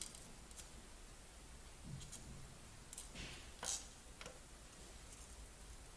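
Faint, scattered small clicks and one short scrape a little past the middle, from a desoldering iron's tip and fingers working a keyboard ribbon connector loose on a circuit board.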